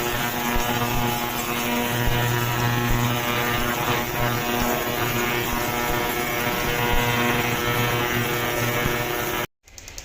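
Lexus ES 350's 3.5-litre V6 running with a steady, loud drone. The engine has a misfire that the mechanic traces to cylinder number one not working at all.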